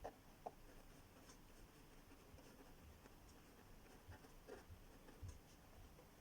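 Near silence: room tone with a few faint, scattered ticks and taps.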